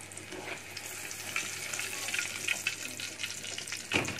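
Hot oil sizzling and crackling in a karahi as fried boiled eggs are lifted out of it. Near the end there is one loud knock, like a utensil striking the pan.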